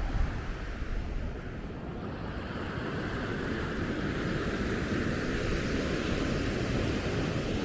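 Sea surf washing onto the beach, the wash swelling from about three seconds in. A gust of wind buffets the microphone near the start.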